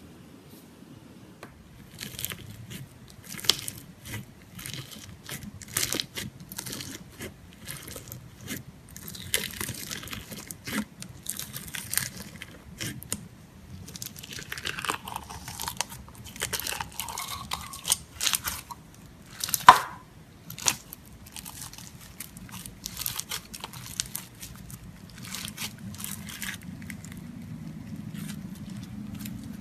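Slime being squeezed and pressed by hand, with irregular crackly clicks, squelches and small pops, and one louder pop about twenty seconds in.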